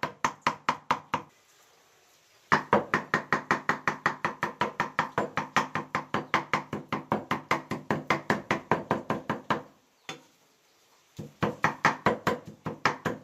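A knife mincing duck meat on a thick round wooden chopping board, about five quick knocks a second. The chopping stops briefly twice, once about a second in and again near the end, then starts again.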